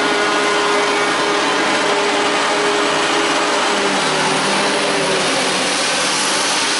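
Claas Jaguar 850 self-propelled forage harvester running at work as it drives past close by: a loud, steady machine drone with a dense whooshing hiss over it. A lower hum joins about four seconds in.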